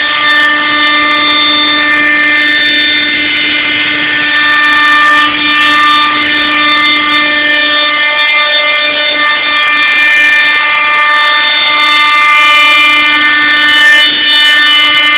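CNC machine running on a test, giving a loud, steady whine of several pitches at once, with a slight change in the mix of tones about eight seconds in.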